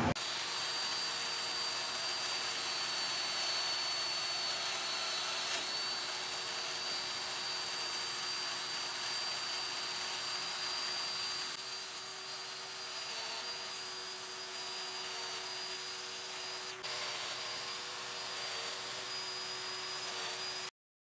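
Festool Domino joiner running steadily with a high whine while cutting mortises into the edge of a hardwood panel; the sound cuts off suddenly near the end.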